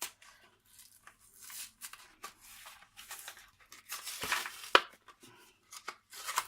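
Packaging of scrapbooking embellishments being torn open and handled: irregular tearing and crinkling rustles, loudest around four seconds in, with one sharp click near five seconds.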